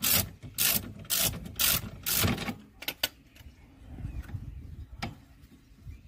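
Hand ratchet wrench ratcheting on a brake caliper bolt as it is tightened: about five quick strokes in the first two and a half seconds, then a few single clicks.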